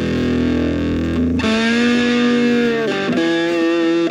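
Electric guitar played through a vintage Arbiter Fuzz Face fuzz pedal with NKT275 germanium transistors. It plays a few long held notes: one changes about a second and a half in and wavers with vibrato, and another follows about three seconds in.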